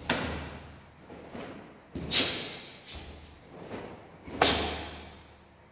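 Karate gi cracking sharply with each technique of an inside block, front kick and punch: three loud snaps about two seconds apart, the last the loudest, each with a short echo from the hall, with fainter snaps between.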